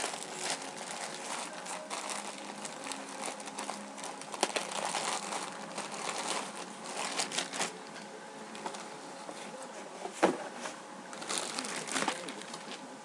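Crinkling and rustling of packaging as a folded t-shirt is unwrapped and handled, with sharp crackles throughout and a louder click about ten seconds in.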